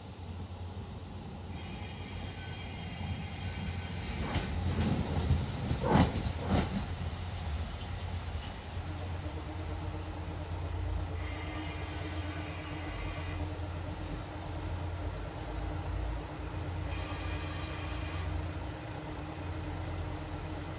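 JR Hokkaido KiHa 54 diesel railcar pulling in: its wheels clatter as it comes past, then the brakes squeal in high-pitched stretches about seven seconds in and again in the middle, while the diesel engine settles to a steady idle as the train stops.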